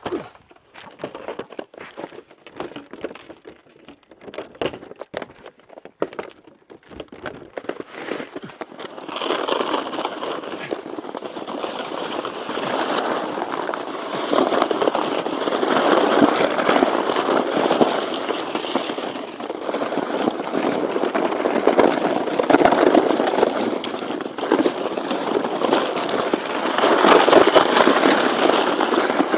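Plastic Stingray sledge sliding down a packed-snow and icy lane. For about the first eight seconds it crunches and crackles irregularly over the snow. From about nine seconds in it becomes a continuous scraping rush as it picks up speed, loudest near the end.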